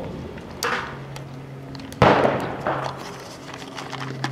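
Gunshots on a shooting range: one loud report about two seconds in that rings out in a long fading echo, and a fainter shot just before the first second.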